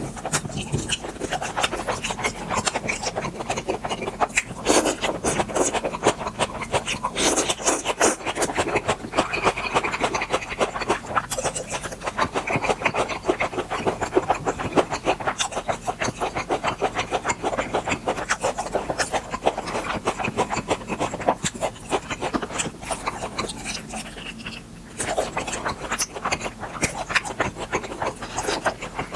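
Close-miked chewing of grilled beef intestines: a dense, continuous run of wet clicks and crunches, with a short lull about three-quarters of the way through.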